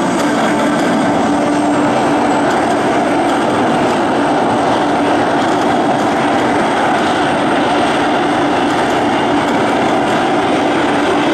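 Several F-16 Fighting Falcon jet engines running steadily on the ground just after start-up, with a faint high whine over a loud, even rush.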